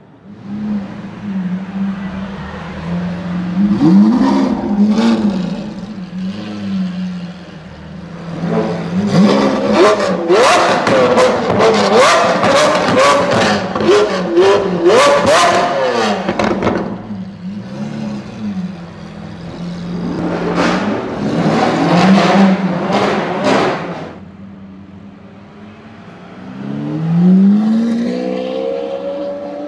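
Lamborghini Aventador's V12 engine through a straight-pipe exhaust: idling and blipping the throttle, then revving hard again and again with rapid bursts of sharp pops and bangs from the exhaust. Near the end it pulls away and accelerates, the pitch rising through the gears.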